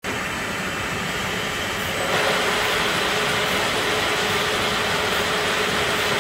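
Powered roller conveyor running with a steady machine hum. About two seconds in the noise grows louder as a long aluminium building profile rolls in along the rollers.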